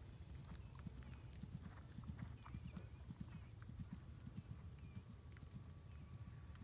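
Faint, dull hoofbeats of a horse cantering on grass turf, a quick uneven run of low thuds.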